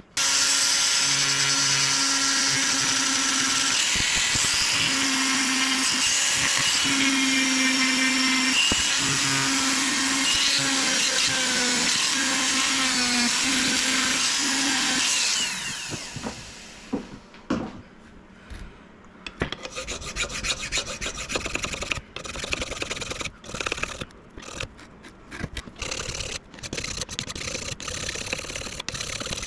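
A power tool runs with a steady whine that steps up and down in pitch for about fifteen seconds, then stops. After a short lull comes uneven, stop-start rubbing.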